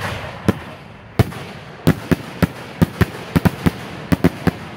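Aerial fireworks shells bursting overhead at close range at the tail of a finale: about a dozen separate sharp bangs at irregular intervals over a fading rumble.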